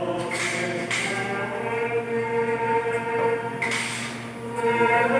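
A choir of voices singing a slow hymn, holding long sustained notes.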